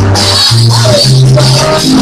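Loud music with held bass notes that change every half second or so, a wavering melody above them, and a constant high hiss.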